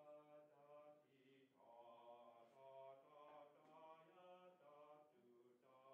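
A man's voice softly singing a melodic phrase on sustained notes, each held about half a second, with short breaks about a second and a half in and near the end: a conductor singing a passage to show the band how it should go.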